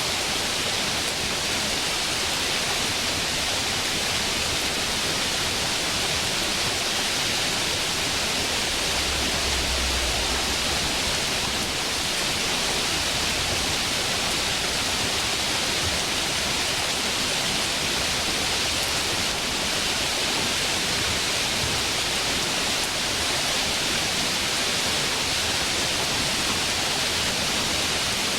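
Steady, even rushing of a flowing stream, unbroken throughout, with its hiss strongest in the upper range.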